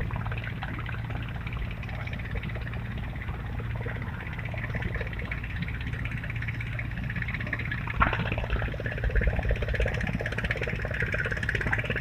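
A steady low engine hum, with a sharp click about eight seconds in.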